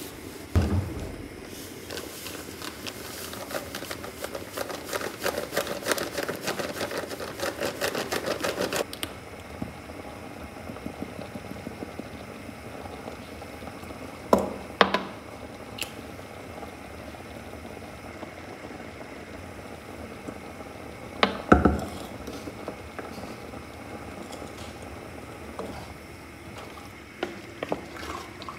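Kitchen handling sounds: a thump, then several seconds of fast back-and-forth rubbing of a cloth wiping the countertop. After that come a few scattered knocks and clinks of a small glass spice jar and a wooden spoon against the cooking pots, the loudest a single knock about two-thirds of the way through.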